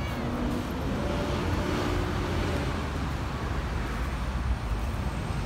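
Steady city road traffic noise, a low rumble of passing cars and buses with no single sound standing out.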